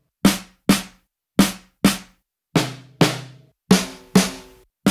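Soloed acoustic snare drum samples from Logic Pro's drum replacement library, triggered by a recorded snare part: about nine single hits, mostly in pairs about half a second apart, each with a short ringing decay. The snare's tone changes partway through as different snare samples are auditioned.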